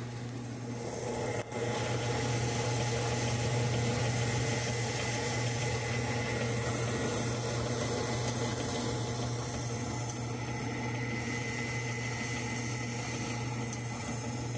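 Washing machines running: a steady motor hum, with a brief click about a second and a half in.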